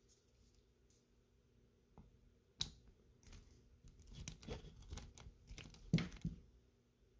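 Screwdriver turning a rear sling swivel wood screw out of an SMLE Mk III* rifle's wooden butt stock: a sharp click about two and a half seconds in, then an irregular run of creaking, crunching clicks as the screw turns in the wood, loudest near the end.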